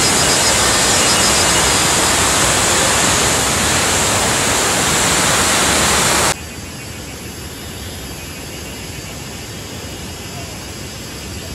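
Steady rush of fast-flowing river water. About six seconds in it cuts abruptly to a quieter, softer rushing hiss.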